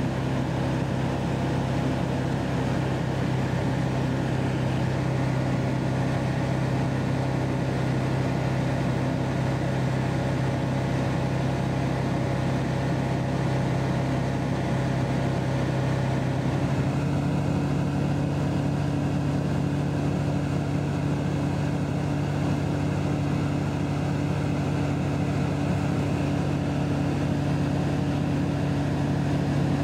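Light aircraft engine and propeller droning steadily in cruise, heard from inside the cockpit. About halfway through the drone steps up slightly in pitch and holds there.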